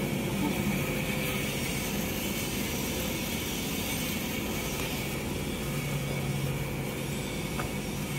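Small toilet-roll cutting machine running steadily: a constant motor hum and whir with no change in pace.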